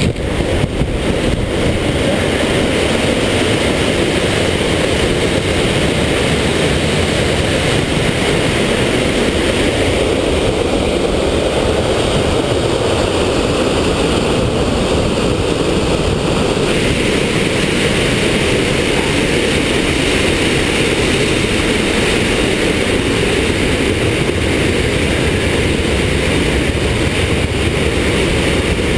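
Waterfall rushing: a loud, steady noise of falling water, heaviest in the low end.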